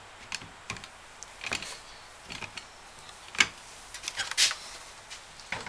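Scattered light clicks and knocks of a plastic-bodied bar clamp and wood being handled and adjusted on a workbench, with one sharper click about three and a half seconds in.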